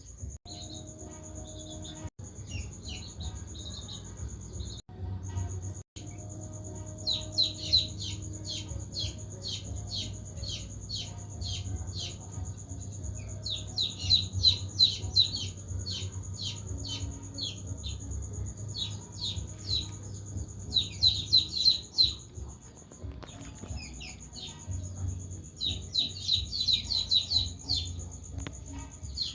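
Birds chirping in quick, repeated trains of short notes, over a low steady hum and a thin, continuous high whine.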